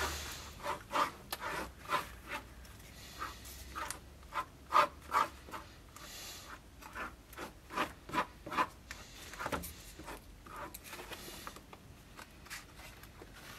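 A pine scabbard core sanded by hand on a sheet of sandpaper: short rasping strokes in quick runs of two or three a second, with brief pauses between runs.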